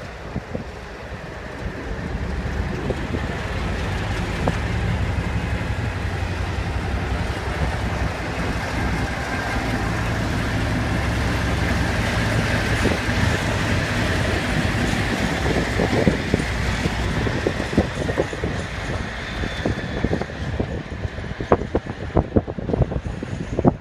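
Diesel locomotive-hauled train passing: a steady engine drone builds up and holds, then a growing run of sharp clicks and knocks from the wheels over the track follows in the last several seconds.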